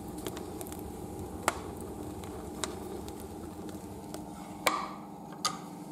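Wheat grain burning in a bottom-combustion boiler's firebox: a handful of sharp crackles and pops over a steady low hum, the loudest crack nearly five seconds in.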